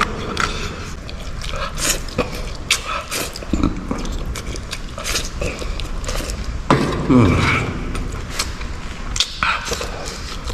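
Close-miked chewing of crunchy beef cartilage, a run of sharp crunches and crackles, with a brief appreciative hum from the eater about seven seconds in.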